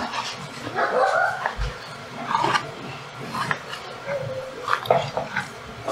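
A dog whining and yipping in short pitched calls, with a knife clicking a few times on a plastic cutting board as fish is cut.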